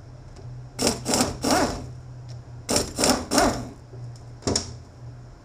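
Metal parts of a transfer case being handled on the bench: two short runs of scraping, rasping strokes, then a single sharp knock.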